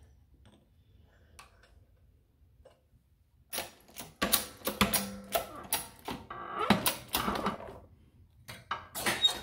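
Steel ring-reducing die and punch clinking and clacking together as they are set in a press. About three seconds of quiet come first, then a fast run of sharp metallic clicks, some ringing briefly.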